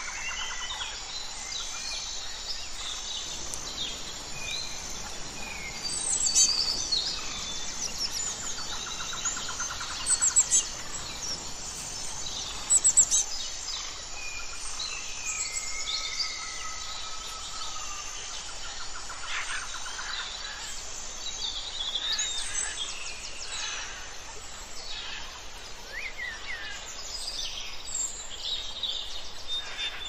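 Several songbirds calling and singing at once: a busy mix of chirps, rapid trills and short whistles, with a few louder sharp calls about six, ten and thirteen seconds in.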